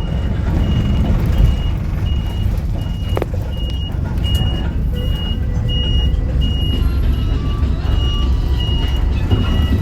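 Small bus's warning beeper sounding a high, even beep about twice a second over the steady rumble of the idling diesel engine, with a single sharp click about three seconds in.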